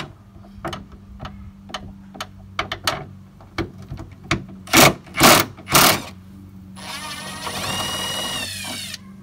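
Cordless drill with a socket extension working a car's hood hinge bolts to take the hood off: scattered clicks, three loud short bursts about halfway, then the motor spins up with a rising whine and runs steadily for about two seconds before stopping near the end.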